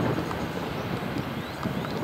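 Jet airliner's engines at takeoff power as it rolls down the runway, a steady rough rush with wind buffeting the microphone.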